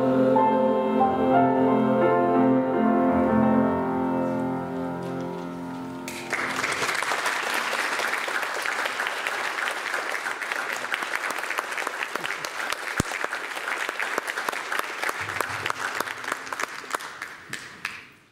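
Final held chord of a women's choir with bassoon and piano, dying away about six seconds in. Then audience applause starts suddenly and fades out near the end.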